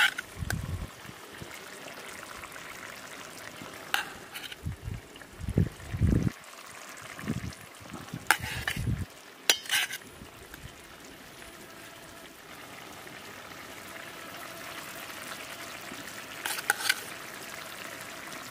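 Egg curry simmering in a pan on a portable gas stove, a steady frying hiss. A knife clinks against a steel plate a few times as omelette pieces are cut and lifted in, with several dull thumps of handling in the first nine seconds.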